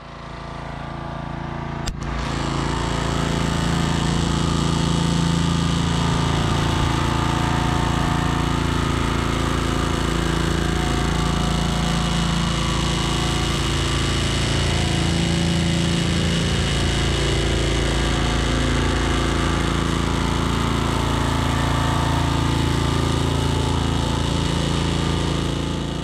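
Petrol pressure washer's small engine running steadily under load, with its high-pressure water jet spraying onto the steel bed of a sawmill. The engine note dips and recovers a few times.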